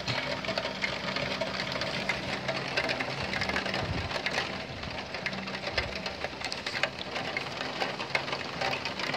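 Heavy rain pattering on a roof overhang and dripping from its edge, a dense, steady crackle of drops.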